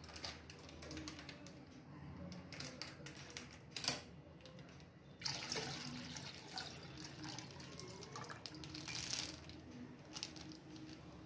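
Milk poured from a plastic pouch into a steel pot, the stream splashing into the milk already there, swelling about five seconds in and easing off near the end. Rustles and clicks from handling the pouch run through it, with one sharp click just before the pour swells.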